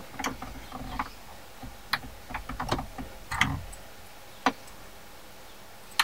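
Plastic clicks and small knocks of the wiring connector being unplugged from a BMW X5 E53's electronic accelerator pedal, a handful spread over the first four and a half seconds, the last a single sharp click.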